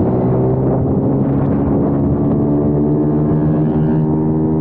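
Kayo TT 140 pit bike's single-cylinder four-stroke engine running hard at a steady pitch under held throttle, heard from on board the bike.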